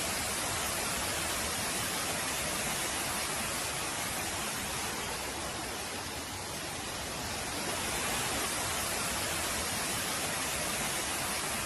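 Steady, dense hiss of a heavy downpour.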